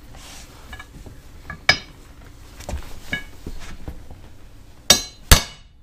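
A few light knocks and clicks, then two sharp hammer strikes on a flooring pull bar near the end, knocking a click-lock laminate plank tight into its joint.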